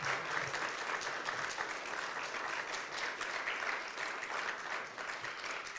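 Audience applauding steadily in a hall, a dense patter of many hands clapping.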